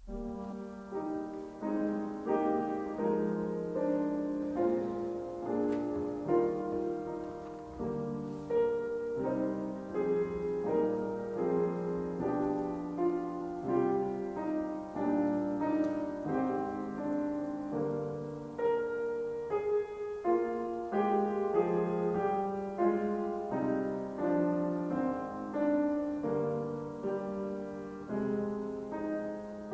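Piano music: a solo piano playing a calm piece of chords and melody notes, struck about once a second, beginning right at the start.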